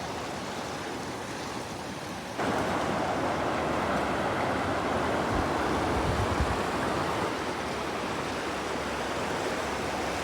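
Running water rushing steadily, a river or stream flowing. About two and a half seconds in it abruptly gets louder and fuller, then holds steady, with a brief low rumble a few seconds later.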